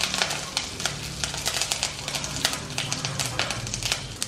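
Curry leaves, dried red chillies and mustard seeds crackling and spluttering in hot oil in a kadai, with many irregular sharp pops over a steady sizzle: the tempering stage of a Kerala mango pickle.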